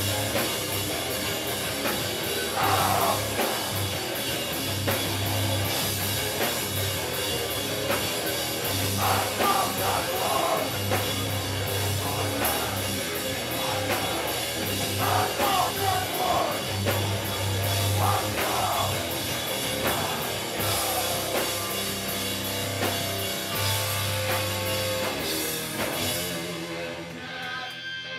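Live rock band playing loud: electric guitar and a pounding drum kit, with vocals coming in at intervals. The song stops a second or so before the end.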